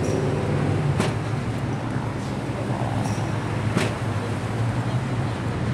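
Tennis ball machine running with a steady motor hum, with sharp ball pops about every three seconds as balls are launched and hit.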